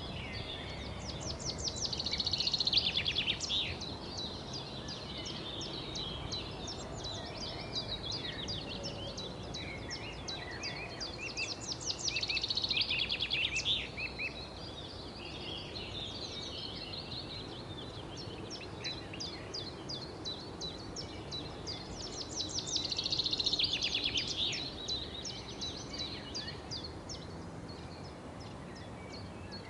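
Songbirds chirping over a steady low background hiss, with a fast, rapid trilling song standing out three times, about ten seconds apart, over quieter chirps.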